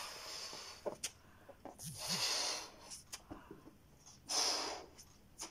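A person blowing into a 9-inch balloon by mouth: three long puffs of breath inflating it to stretch the rubber, with a few faint clicks between.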